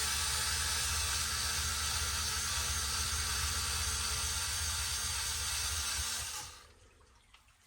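Electric power driver running steadily as it backs out the screws holding the motor mount, then stopping about six seconds in.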